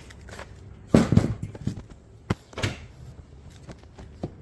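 Hard objects being handled and set down on a table: a clatter of knocks about a second in, then a few separate sharp clicks.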